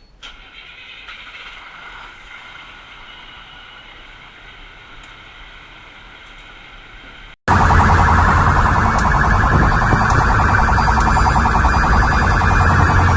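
Quieter steady vehicle noise, then after an abrupt cut about seven seconds in, a loud electronic emergency siren warbling rapidly.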